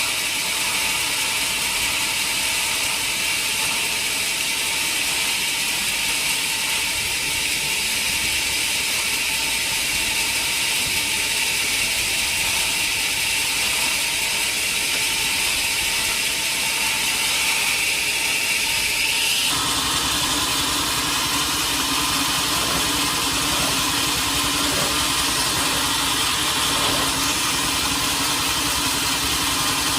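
Sawmill machinery running steadily. About two-thirds of the way through, the sound changes abruptly to a lower, steady hum.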